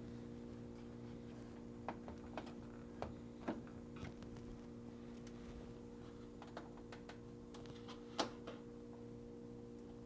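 Faint, scattered clicks and ticks of a plastic refrigerator drawer stop being pried at with a small flat-blade screwdriver and worked loose, with a sharper click near the end, over a steady low hum.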